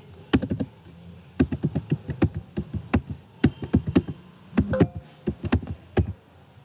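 Typing on a computer keyboard: irregular runs of sharp key clicks, several a second, with short pauses between runs.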